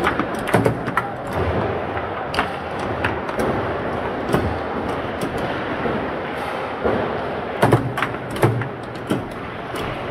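Foosball table in play: sharp clacks and knocks of the ball being struck by the figures and hitting the table walls, and of the rods and figures knocking, coming irregularly and sometimes in quick clusters over a steady background noise.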